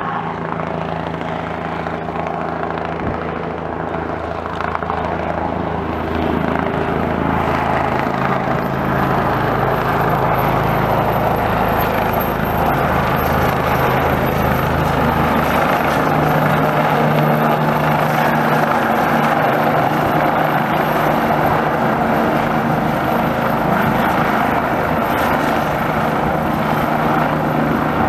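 Bell 429 twin-turbine helicopter hovering low and setting down to land: steady rotor and turbine noise with a thin high whine, getting louder about six seconds in.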